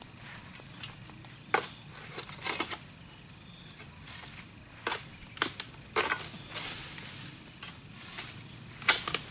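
Steady high-pitched drone of insects, with scattered sharp clicks, knocks and rustles as the long steel harvesting pole (egrek) is pushed among the oil palm fronds.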